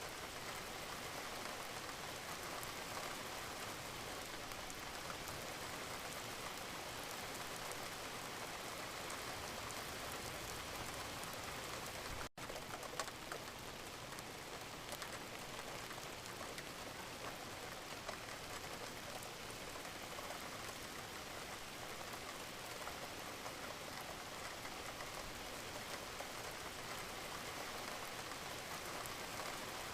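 Steady rain: a dense, even patter of raindrops with no lulls, broken only by a split-second gap about twelve seconds in.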